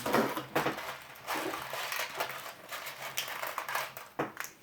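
Quick irregular clicks and light rattling of 6mm plastic airsoft BBs and a gas-blowback pistol magazine being handled while the BBs are loaded.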